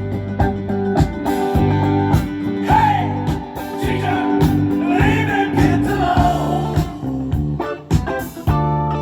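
A guitar-based pop-rock song playing through a Sansui AU-555A vintage stereo amplifier. The song has a steady beat, and a sliding melody line comes in from about three seconds in until near the end.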